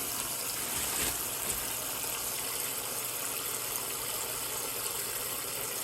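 Water running steadily into the tub of a small portable washing machine as it is filled.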